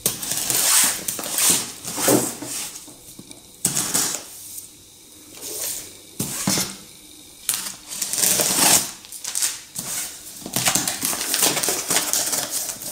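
Packing tape on a cardboard box being slit with a pen and torn, then the cardboard flaps pulled open: a run of scratchy rips and scrapes with short quieter gaps between them.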